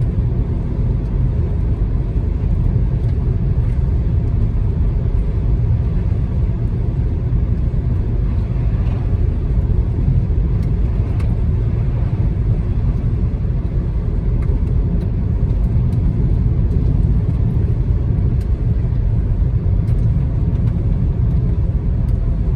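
Steady low rumble of a car being driven: road, tyre and engine noise.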